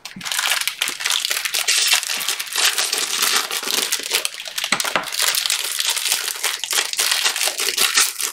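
Plastic wrapping crinkling and crackling in a dense, uneven run of small crackles that starts suddenly.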